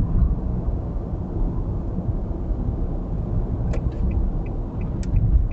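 Steady low road rumble of a car driving at highway speed, about 70 km/h, heard inside the cabin. A few light ticks come in the second half.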